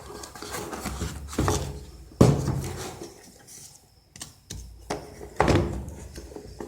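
Cardboard phone box and its packaging being handled: a series of knocks and rustles, the loudest about two seconds in, with others spread through the rest.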